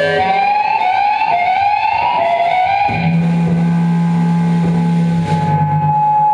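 Live rock band playing noisy, distorted electric guitar: a run of repeated rising pitch slides, then a held low bass note comes in about halfway through, and a sustained high guitar note rings on near the end.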